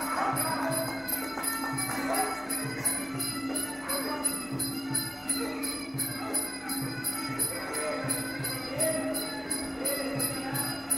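Live sarama music from a Muay Thai fight: ching hand cymbals clink on a steady, even beat over hand drums, with a wavering pitched melody above.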